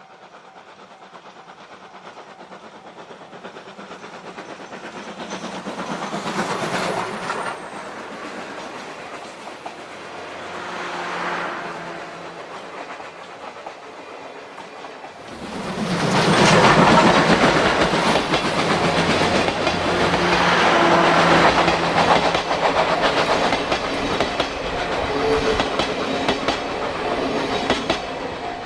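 C57-class steam locomotive hauling a passenger train past, its wheels clattering over the rail joints. The sound builds over the first half and is loudest from about halfway through as the train goes by.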